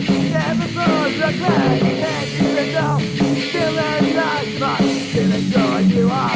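Punk rock band playing on a demo recording: drums, bass and electric guitar, with a wavering melodic line over the top.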